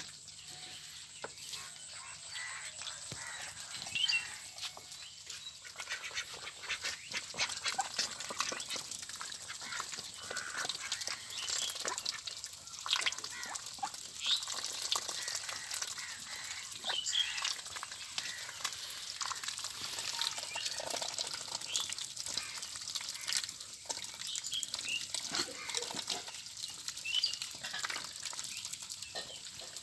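A flock of ducks calling among a busy crackle of splashing water.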